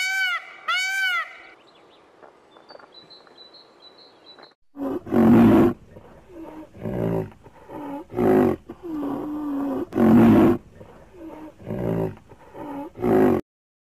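A goose's arched honk at the start, then faint high chirps. From about five seconds in, a large animal gives loud, deep calls roughly every second and a half, with softer calls between them, and stops suddenly shortly before the end.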